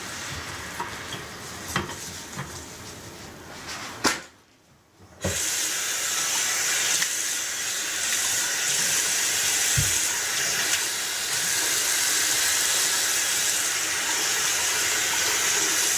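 Bathroom faucet running into the sink to test the freshly cleared drain, with a few clicks of handling early on. After a short break about four seconds in, the water runs steadily.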